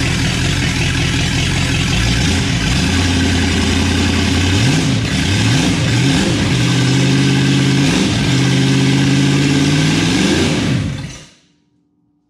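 1960 Chevrolet 283 small-block V8 with a two-barrel carburetor, running on a run stand through bare exhaust manifolds. From about four seconds in it is revved up and down several times by hand at the carburetor, then it shuts off quickly about eleven seconds in.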